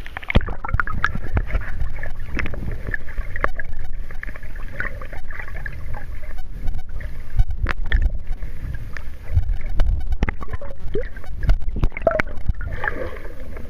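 Sea water splashing and sloshing against a waterproof camera carried through the waves by a swimmer: a constant low rumble of moving water with many irregular knocks and splashes.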